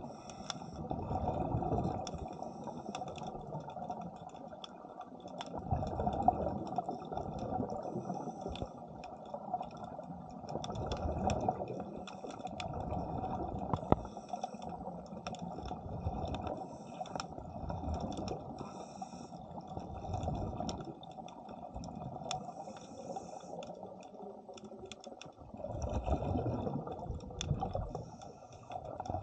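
Underwater sound of a diver breathing through a regulator, the exhaled bubbles bubbling past the camera in surges every few seconds. A faint crackle of small clicks runs underneath.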